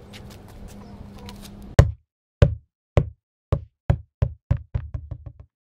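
Faint background noise with a low hum and a few light ticks, then, about two seconds in, an edited-in sound effect: about a dozen sharp knocks coming faster and faster and mostly fainter, with dead silence between them.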